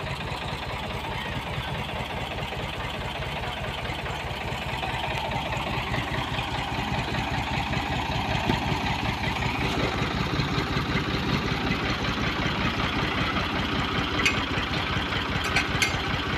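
Farm tractor engine running steadily, getting louder over the first half as the tractor drives closer. A few short, light clicks come near the end.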